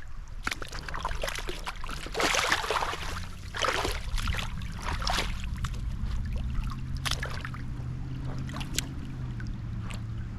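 Splashing and sloshing of someone wading through a river, in uneven bursts, the loudest a few seconds in, over a steady low rush of water.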